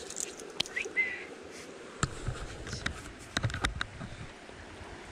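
Stream water running with a steady hiss, broken by scattered sharp clicks and knocks and a short rising chirp about a second in.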